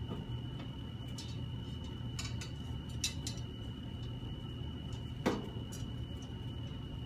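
A few light clicks and ticks of antenna wire and tools being handled while the ground radials are measured, the sharpest one about five seconds in, over a steady low hum and a thin steady high whine.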